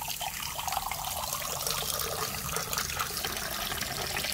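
A stream of water pouring into a ceramic cup, filling it steadily.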